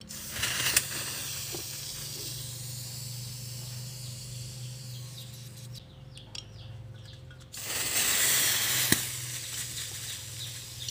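Butane hissing as a refill can is pressed into the fill valve of an S.T. Dupont Ligne 2 gold-plated lighter, in two spells with a short pause between. Gas also escapes from the lighter's flame-adjustment valve during filling, which the repairer takes as a sign of a faulty O-ring.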